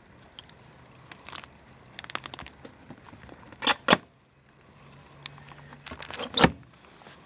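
Sharp clicks and knocks from suitcase-style metal latches and the sheet-metal filter access panel of an HVAC air handler being handled. Two crisp snaps come near four seconds in, and the loudest knock about six and a half seconds in.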